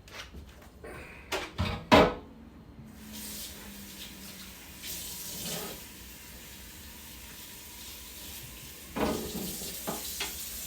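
Water running from a tap into a sink, with a few knocks and clatters of things being handled: the loudest about two seconds in, more near the end.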